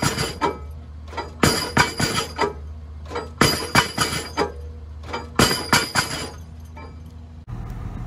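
Pile-driving hammer blows on a precast reinforced concrete pile: each blow is a cluster of sharp metallic clanks, coming about every two seconds, four times, over the steady low hum of the piling rig. The blows come while the set of the pile is being recorded on a card. About seven and a half seconds in, the clanking stops and a steady engine noise takes over.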